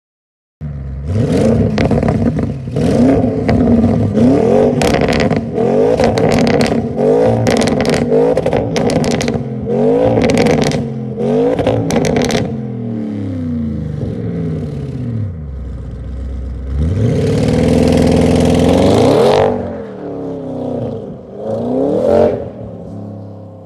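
Audi RS6 C8's twin-turbo 4.0 V8, revved again and again in short blips, with sharp crackles and pops from the exhaust as each rev drops. Later comes a longer, steadily rising pull under acceleration, then a couple more short revs, and the sound fades as the car drives off.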